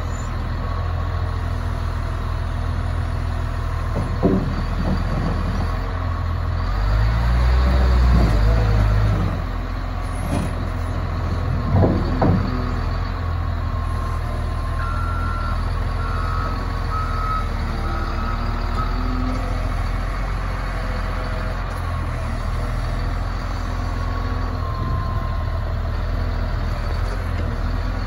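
Caterpillar 950H wheel loader's diesel engine running steadily, swelling louder for a couple of seconds about a quarter of the way in, with a few short knocks. A back-up alarm beeps a few times just past the middle.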